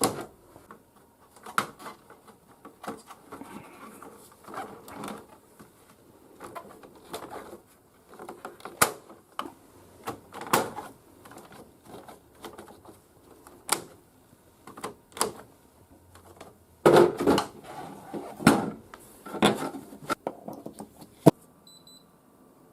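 Handling noise: irregular clicks, knocks and rustling of something being worked by hand, with the loudest knocks about 17 to 19 seconds in, stopping about 21 seconds in.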